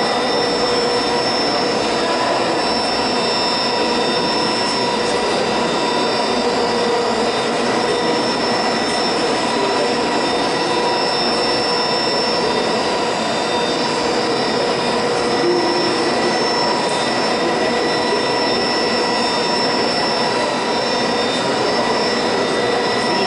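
Colliery winding engine running, its large grooved cable drum turning: a steady machine whine of several held high tones over even mechanical noise.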